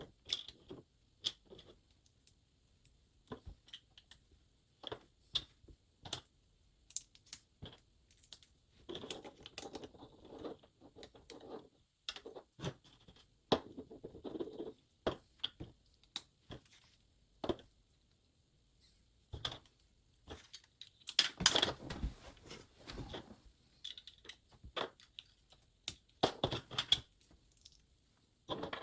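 Plastic LEGO bricks being handled and pressed together: scattered sharp clicks and taps, with denser rattling and rustling in the middle and a louder flurry of clicks a little past two-thirds of the way through.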